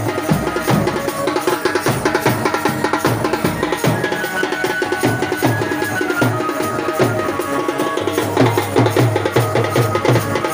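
Wedding band music: a large bass drum struck with a mallet in a steady, driving beat, with a melody held over it.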